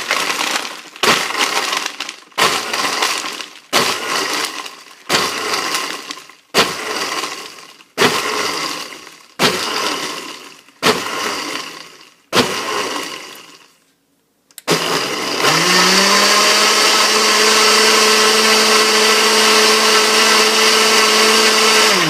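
Blender crushing ice: about ten short pulses roughly 1.4 s apart, each with a sharp cracking start that fades. After a brief pause it runs continuously for about seven seconds, its motor spinning up to a steady pitch, and switches off near the end.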